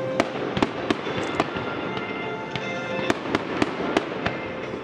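Fireworks display: aerial shells bursting in an irregular string of sharp bangs, about two or three a second, with crackling between them.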